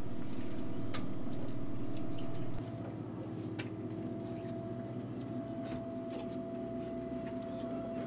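Steady low hum of the fishing boat's engine machinery, with a few faint clicks and knocks. The level drops a little about two and a half seconds in.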